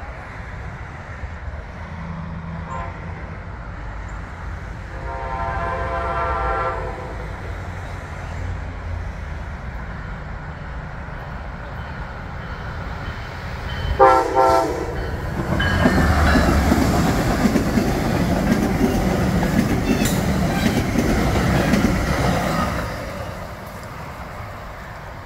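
MARC commuter passenger train approaching and passing. Its horn sounds twice: a fainter chord held for about two seconds around five seconds in, then a louder, short blast around fourteen seconds. The train then goes by with locomotive engine noise and wheels clattering over the rail joints for about seven seconds before fading.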